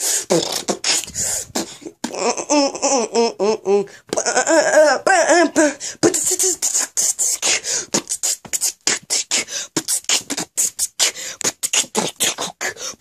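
A person's voice singing wordless, wavering warbled notes for a few seconds, then beatboxing: a fast run of sharp percussive mouth clicks and pops, kept up to the end.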